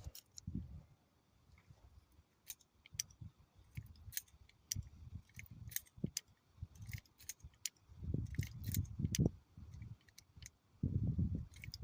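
Small metallic clicks and ticks from a Heritage Rough Rider .22 single-action revolver being handled and unloaded, spent cases coming out of the cylinder. Bursts of low handling rumble come in about eight seconds in and again near the end.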